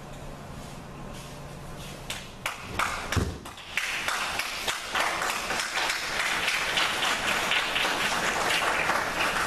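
A few knocks, then a heavy thud about three seconds in as a judoka is thrown onto the tatami. The audience then breaks into steady applause.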